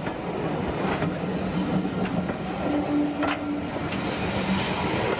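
West Somerset Railway heritage train moving slowly on the line: a steady rumble and hum, with a brief higher tone joining about three seconds in.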